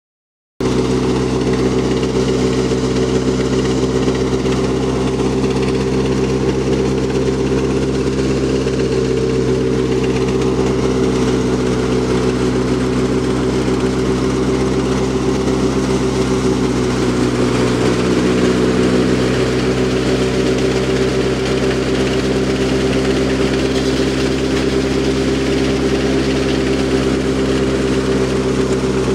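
Tractor-driven wheat thresher running steadily under load as wheat is fed in: a continuous, even machine drone from the engine and the belt-driven threshing drum.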